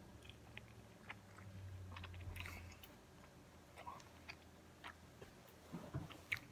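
Faint sounds of a person chewing food, with scattered small mouth clicks and smacks.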